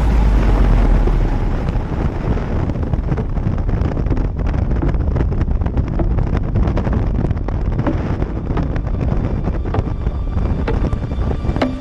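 Wind buffeting the microphone of a moving vehicle, a steady low rumble with irregular gusty crackle and no clear engine note.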